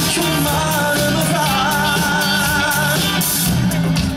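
Live pop band playing through a concert PA, with a male lead singer holding long notes with vibrato over keyboards, guitar and bass.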